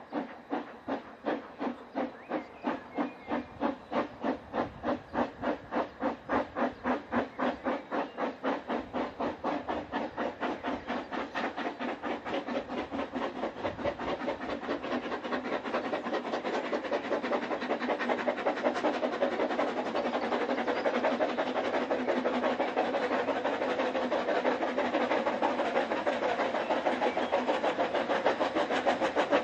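Steam exhaust beats of the Ffestiniog Railway's double Fairlie locomotive Merddin Emrys. A steady chuffing, about three beats a second at first, grows louder and quicker as it approaches, and the beats run together near the end.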